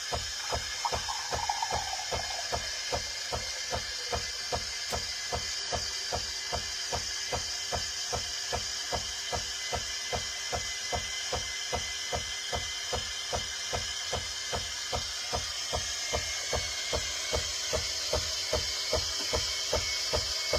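Krups Evidence bean-to-cup coffee machine working through a drink cycle: a pump pulsing at about three beats a second over a steady hiss, with a falling whine dying away in the first two seconds.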